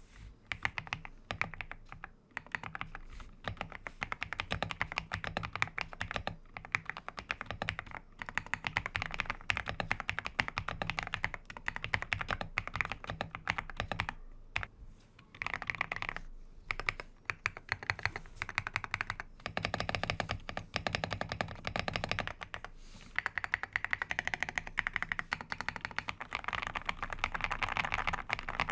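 Typing sound test on an Akko GMK81 hot-swap mechanical keyboard: fast runs of keystrokes on its switches, several bursts separated by short pauses.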